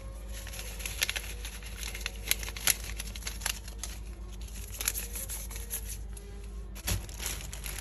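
Irregular crinkling and light clicks of hands handling the tart dough ingredients as baking powder is added, over a steady low hum.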